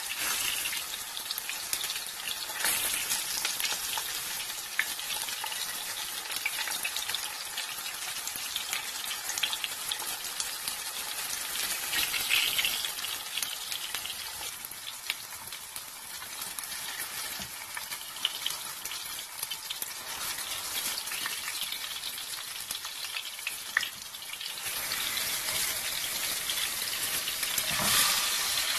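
A whole pompano pan-frying in shallow hot oil: a steady sizzle with scattered crackling pops. The sizzle grows louder a few seconds before the end, and a brief knock comes near the end.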